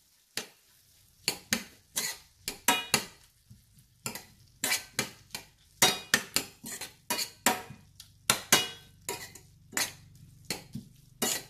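Metal spoon scraping and clinking against a stainless steel frying pan in quick, irregular strokes as squid and onions are stirred.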